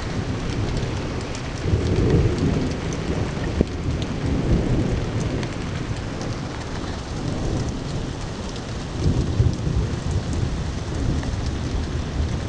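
Heavy rain pouring down in a windy thunderstorm, a steady hiss with deep rumbles swelling and fading a few times.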